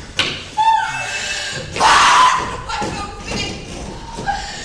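A stage scuffle: a sharp knock just after the start, then a man's strained, distressed cries with a loud shout or scream about two seconds in.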